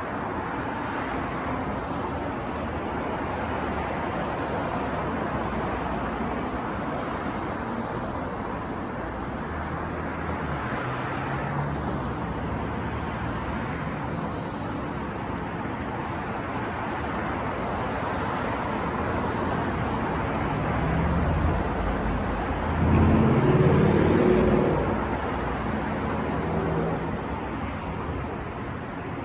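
City street traffic noise: a steady wash of passing vehicles, with one louder engine passing close by about three-quarters of the way through.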